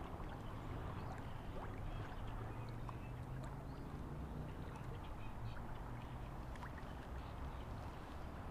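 Steady rush of flowing river water with a low rumble, and faint scattered clicks from a spinning reel being cranked.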